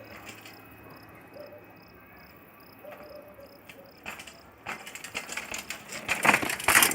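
A cricket chirping at a steady pace of about two to three chirps a second. From about four seconds in, a series of knocks and rustles builds, loudest near the end.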